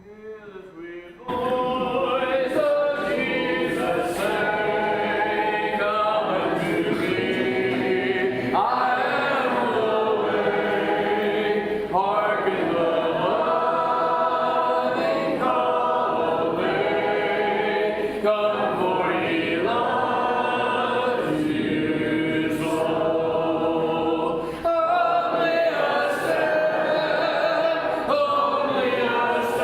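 Church congregation singing a hymn together a cappella, starting about a second in.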